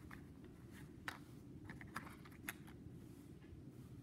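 Near silence: quiet room tone with a few faint, short clicks as fingers nudge a small plastic toy trident across a tabletop.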